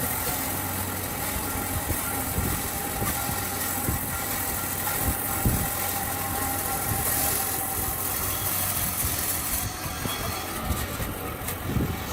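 A motor running steadily, with a faint whine and a few light knocks.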